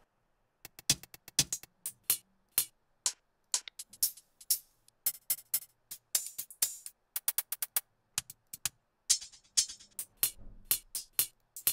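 Hi-hat loop samples previewed one after another in a sample browser: short, crisp hi-hat ticks in changing patterns.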